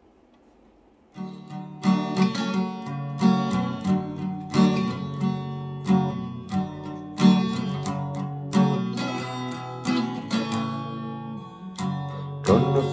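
Acoustic guitar with a capo, strummed with a pick: a chord intro that starts about a second in, with regular strokes and ringing chords.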